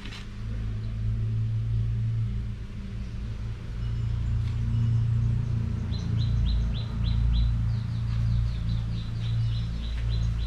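A steady low machine hum, with a small bird calling over it in fast runs of short, high chirps, about five a second, through the second half.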